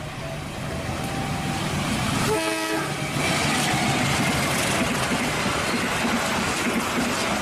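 KAI diesel locomotive hauling a passenger train past, with a steady rumble of engine and wheels on the rails that grows louder after about three seconds. A short blast of its multi-tone horn sounds about two and a half seconds in.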